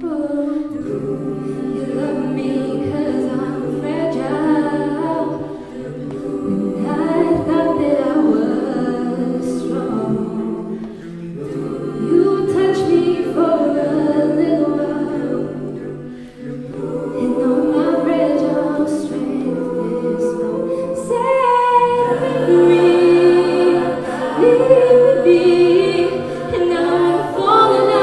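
Mixed a cappella vocal group singing a pop ballad live, a female lead over sustained backing harmonies in several parts, growing fuller and louder about three quarters of the way through.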